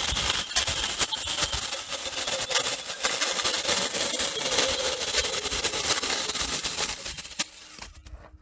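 Battery-powered Saker mini electric chainsaw running with its chain cutting through a small log, a steady buzzing rasp that stops suddenly near the end.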